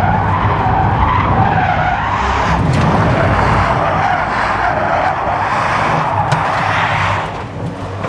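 Rimac Nevera electric hypercar's rear tires squealing as they spin in a smoky drift, the car in full rear-wheel drive with stability control off. The squeal wavers up and down in pitch and eases off near the end.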